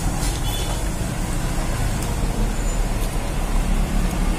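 A steady low rumbling background noise, with a few faint clicks of a metal spoon against the bowl.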